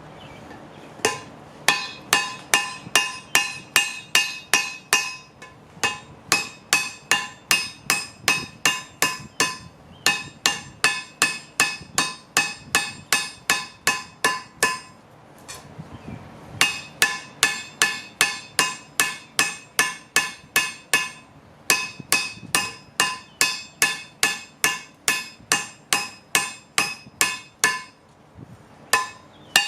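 Hand hammer striking hot steel on a railroad-track anvil while forging, about three ringing blows a second in runs broken by short pauses.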